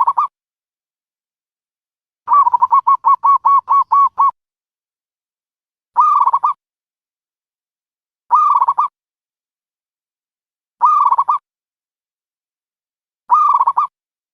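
Dove calling: a quick run of about nine short coos about two seconds in, then single short coo phrases repeated every two to three seconds, with silence between.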